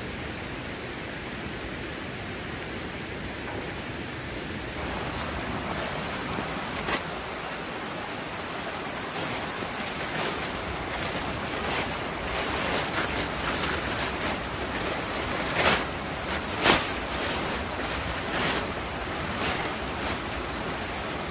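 Steady rush of a mountain stream. From about five seconds in, a woven plastic ground sheet crinkles and rustles as it is unfolded and spread out, with a couple of louder sharp crackles near the middle.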